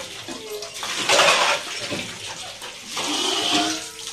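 Water gushing from a hand-pump tubewell spout and splashing onto metal pots and a wet concrete floor as the pots are rinsed, swelling twice, about a second in and again near the end.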